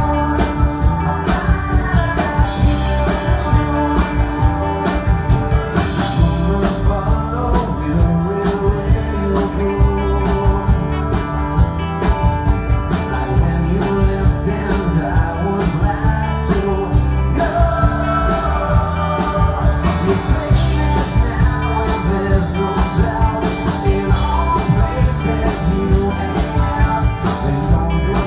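Live rock band playing through a stage mix: electric guitars, bass and a drum kit keeping a steady beat, with a male lead vocal sung into the microphone.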